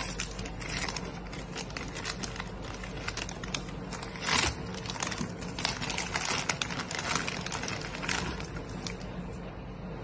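Clear plastic bag crinkling and rustling as hands open it and slide out a slice of bread, in a run of crackles with the loudest a little over four seconds in.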